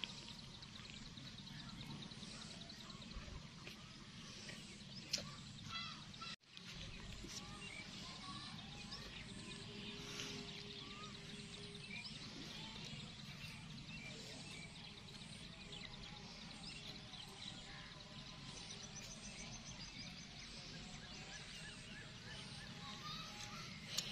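Faint outdoor ambience with many small birds chirping and calling, broken by a brief dropout about six seconds in.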